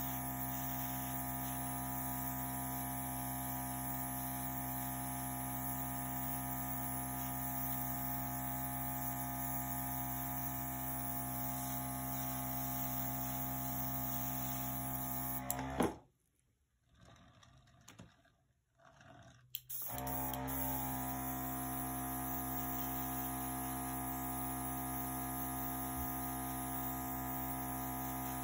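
Small airbrush air compressor running steadily, a motor hum with hissing air. About sixteen seconds in it cuts off with a click, stays quiet for about four seconds, then starts up again.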